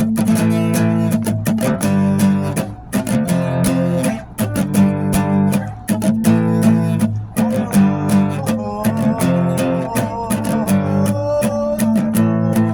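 Band music led by a strummed acoustic guitar, the strokes repeating in a steady rhythm, with a higher melody line joining about eight seconds in.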